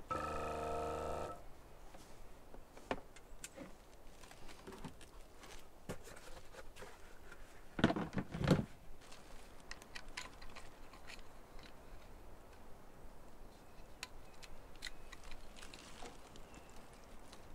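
A small electric water pump runs with a steady buzz for just over a second as its wire is connected to the battery, then stops. About eight seconds in, the plastic lid of the battery box is shut with a clatter, followed by light clicks of plastic pipe fittings being handled.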